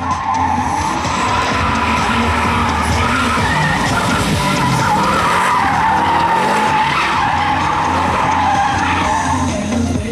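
Car tyres squealing through a controlled slide around cones: one long squeal that wavers up and down in pitch, over the steady drone of the engine.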